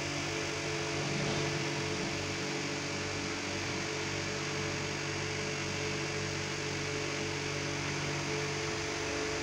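Hydraulic excavator's diesel engine running at a steady hum, heard from inside the operator's cab.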